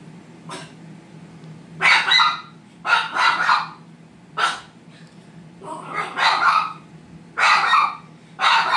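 A Shiba Inu barking at a cardboard box it dislikes: repeated sharp barks, singly and in quick clusters of two or three, about every second.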